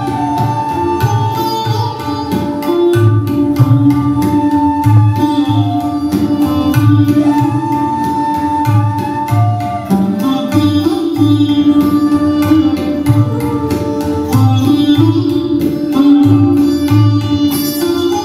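Live Indian music: tabla keeps a steady rhythm of low drum strokes, a bansuri bamboo flute plays long held, sliding melody notes, and a sitar plucks over a steady drone note.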